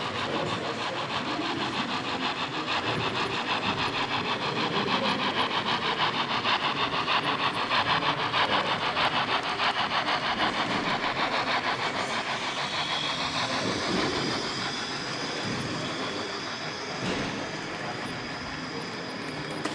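H0 scale model train running along the layout track, making a fast, even clicking that swells and then fades after about twelve seconds, with a thin higher whine coming in near the end.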